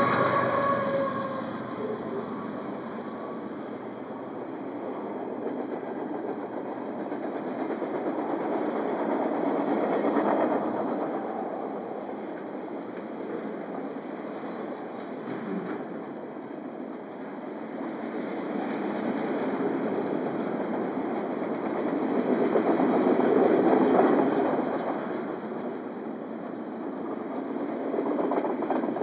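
Cars of a BNSF intermodal freight train rolling past, with wheels clattering over the rails. The steady rumble swells and eases as cars go by.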